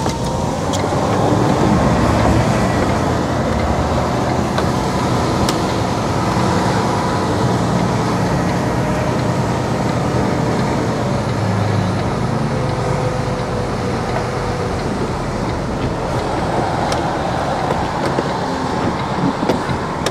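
Lorry's diesel engine running steadily with tyre noise on a wet road, heard from inside the cab as the truck moves off; a faint rising whine near the start.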